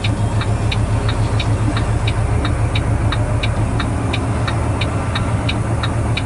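Semi-truck engine running with a steady low drone, while a sharp clicking repeats evenly about three times a second.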